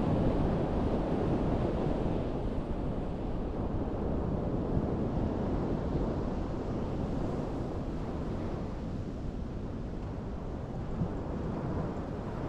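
Wind buffeting the microphone over the steady wash of surf on a sandy beach, a low, rumbling noise that swells and eases gently.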